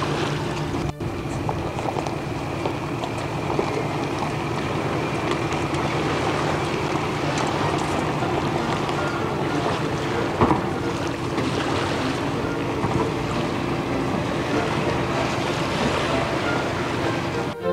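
Steady engine drone of a small car ferry and the vehicles boarding it over the ramp, with wind noise on the microphone and a couple of brief knocks.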